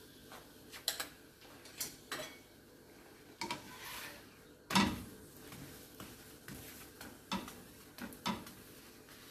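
A steel spoon and then a wooden spatula clinking and knocking against a tawa as a thepla is oiled and turned. About eight light knocks, spread unevenly, with the loudest about halfway through.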